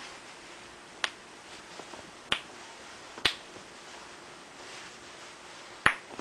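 Human joints cracking: four sharp pops, roughly a second apart, with a pause of over two seconds before the last.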